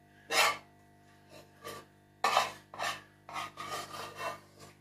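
A spoon scraping in a run of short, rasping strokes, the loudest about half a second in and just past two seconds, as solid ghee is scooped and added to raw meat in an aluminium pressure cooker.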